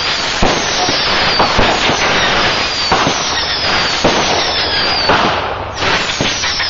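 A fireworks display going off continuously: a dense crackle of many small bursts and pops. High whistling tones slide down in pitch about once a second. A brief lull comes just before a fresh loud burst near the end.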